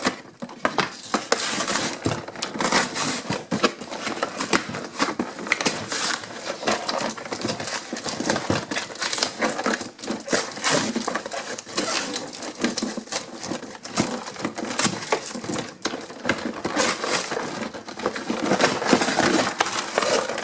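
Cardboard box and plastic toy packaging being pulled, bent and torn by hand: a continuous run of crinkling and crackling with many irregular clicks and snaps.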